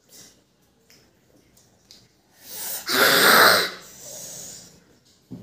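A young girl blowing out a long, loud breath through pursed lips, lasting about a second and a half, past the middle. Faint mouth clicks from eating come before it.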